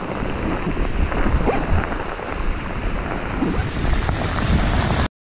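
Heavy wind-driven rain pouring down on a lake and an open aluminum boat during a passing storm front, with strong wind rushing across the microphone. The noise is steady and stops suddenly near the end.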